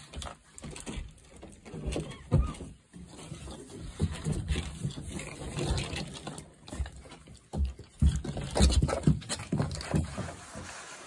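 Irregular low bumps and rustling of monkeys shuffling about and picking at trail mix scattered on a plastic playground deck, with a few sharp clicks. The loudest bumps come late, as the phone is swung around.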